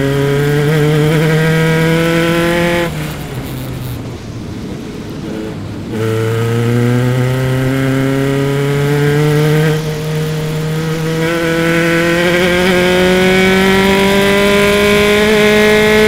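Onboard sound of a single-seater race car's engine under full throttle, rising in pitch. About three seconds in the driver lifts off and the engine goes quieter for a few seconds. About six seconds in he is back on the power, and the engine pitch climbs steadily along a long pull until he lifts again at the very end.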